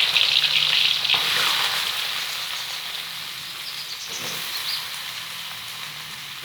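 Sliced bamboo shoots sizzling in hot oil in a frying pan, loud at first and slowly dying down as the oil cools around them.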